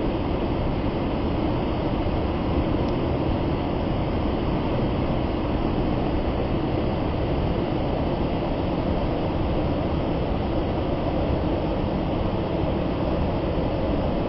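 Large waterfall: a steady rush of falling water, a continuous even noise weighted toward the low and middle range.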